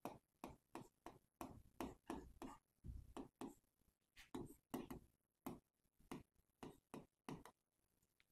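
Stylus writing on an interactive smart-board screen: a string of faint, irregular taps and short scrapes as the letters are formed, stopping near the end.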